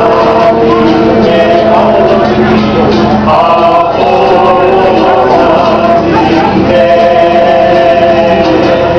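A small group of men and women singing together in long held notes, accompanied by a strummed ukulele.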